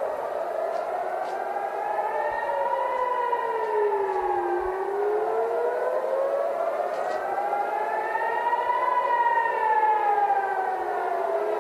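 Civil-defence air-raid sirens wailing, their pitch slowly rising and falling, several sirens out of step with one another. They are the warning of incoming missiles.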